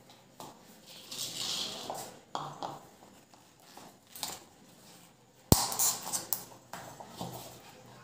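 Clicks and scrapes of ceiling-fan parts being handled as the canopy cover is fitted over the downrod, with one sharp click a little past the middle that is the loudest.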